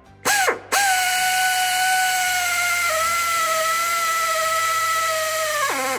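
Power drill driving a cobalt bit to drill out a broken 6 mm bolt in a Ford 6.7L Power Stroke's oil filter adapter, working through a guide plate. A short blip of the motor comes first, then a long steady whine that dips slightly in pitch partway through, as if under load, and winds down just before the end.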